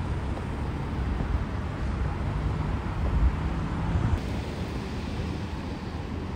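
Steady road traffic noise from a busy multi-lane city street, a continuous rumble of passing cars.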